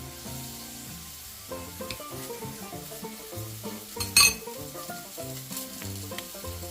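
Ground-chicken burger patties sizzling in avocado oil in a frying pan, with a short loud clatter about four seconds in.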